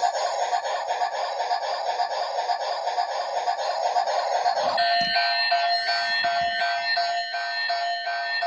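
Avtoprom 7787 toy locomotive's built-in sound effects through its small speaker: a rhythmic, pulsing rushing noise, then, about five seconds in, a short electronic tune of beeping tones.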